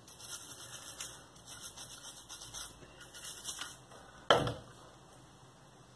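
Nylon cleaning brush scrubbing the parts of a disassembled Bersa Thunder Plus pistol in short, irregular strokes. A single sharp knock about four seconds in comes from a gun part being put down on the counter.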